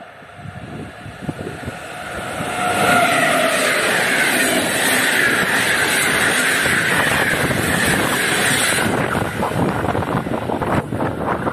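PKP EP07 electric locomotive hauling an Intercity express passes at speed. The noise swells over the first few seconds into a steady, loud rush of wheels and coaches on the rails, then cuts off suddenly about nine seconds in as the last coach clears. Gusty wind noise on the microphone follows in the train's wake.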